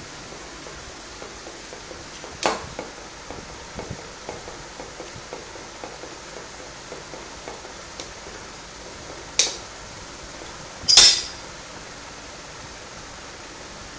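Metal clicks and clinks from a small hand-operated hydraulic press pressing a ball bearing: a sharp click about two seconds in, a run of light ticks, another sharp click, then a loud metallic clank with a brief ring about eleven seconds in.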